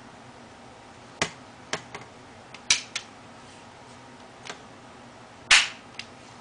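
Antique flintlock pistol's lock being worked by hand: a series of sharp metallic clicks as the cock is drawn back and released. The loudest snap comes about five and a half seconds in.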